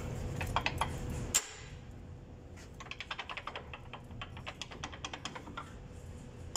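Rapid light clicking and rattling of brake pads being worked by hand in the disc brake caliper of a MAN TGS 21.400 truck, with one sharper click about a second and a half in.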